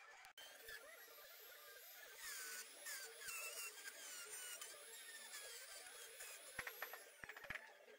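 Handheld trim router running at high speed, cutting a groove along a wooden chair leg: a thin, high whine that wavers in pitch as the bit bites. A few short knocks come near the end.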